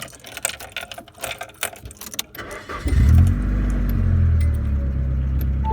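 Keys jangling in the ignition, then the Nissan 240SX engine starts about three seconds in, revs up briefly and settles into a steady idle. It catches right away, with no struggle, on a newly replaced ignition switch.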